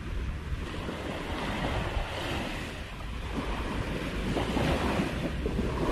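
Sea surf washing on a stony shore, with wind buffeting the microphone. The wash swells about two seconds in and again near the end.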